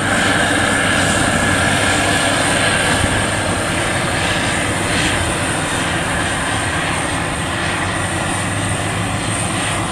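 WD102 Pro rice combine harvester running steadily in the field, its engine and threshing gear making a loud, even mechanical drone.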